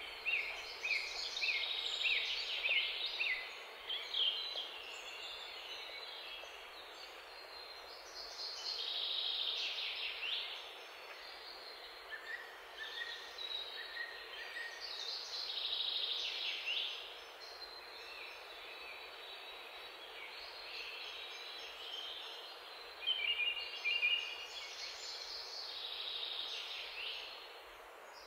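Birdsong: bursts of high chirps and trills every few seconds over a steady background hiss.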